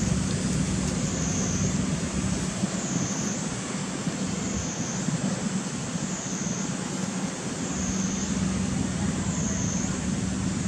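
Steady outdoor background noise with a low hum, overlaid by a high-pitched buzz that swells and fades about every second and a half.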